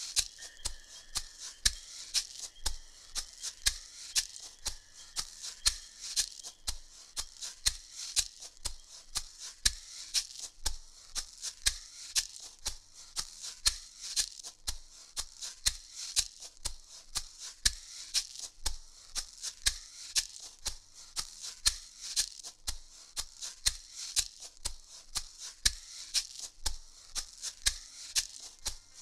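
Percussive music: a steady low beat about twice a second under a dense, fast, high rattling layer.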